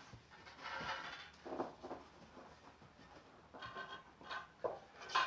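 Faint handling noises of carbon fishing-pole sections: light scrapes, rubs and small taps, scattered and irregular.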